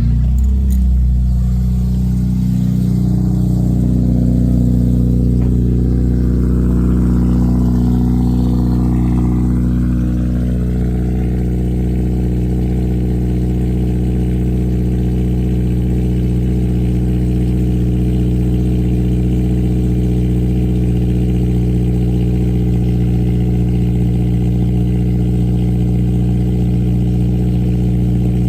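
Acura RSX Type S's 2.0-litre K20 four-cylinder, fitted with Skunk2 headers and exhaust and a cold air intake, idling steadily just after a cold start. The idle is a little stronger for the first couple of seconds, then settles and holds even.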